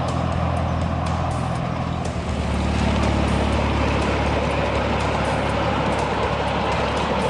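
Engine of a 7¼-inch gauge ride-on miniature locomotive running steadily. Its note changes about two seconds in and it then runs a little louder.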